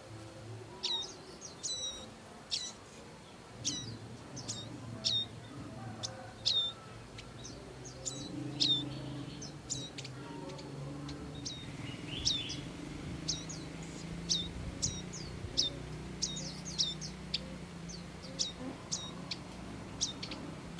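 Prinia repeatedly giving short, sharp chirps, each a quick downward-sweeping note, about one or two a second, with a low steady hum underneath in the second half.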